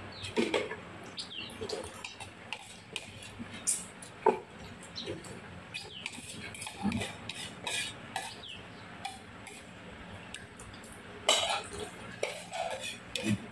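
Metal spoons clinking and scraping against ceramic bowls and plates during a meal, in scattered light clinks, with a denser cluster about eleven seconds in.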